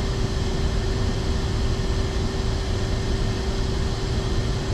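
Steady machinery hum with a low rumble and one constant mid-pitched tone, even throughout.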